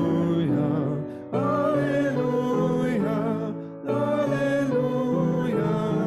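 Voices singing a hymn with instrumental accompaniment: the verse 'Swift rushing wind so wild and strong, white clouds that sail in heav'n along, Alleluia', phrase by phrase with brief breaks between lines.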